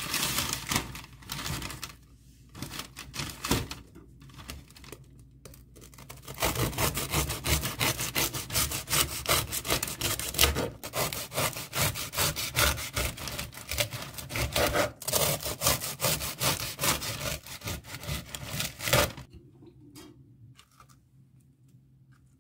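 Paper bakery bag rustling as a baguette is drawn out, then a knife sawing through the crusty baguette on a wooden cutting board in quick back-and-forth strokes. The sawing runs for about twelve seconds and stops near the end.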